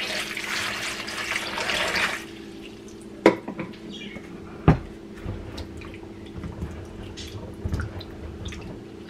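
Water pouring from a plastic pitcher into a plastic bowl of small potatoes for about two seconds, then two sharp knocks, then hands swishing and rubbing the potatoes in the water with light splashing and potatoes clicking together.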